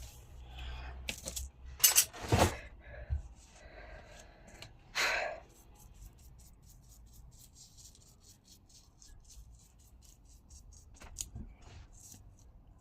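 Hard pieces knocked and clinked on a work surface, with two loud sharp knocks about two seconds in. A heavy breath about five seconds in, then faint rapid ticking and a few light clicks near the end.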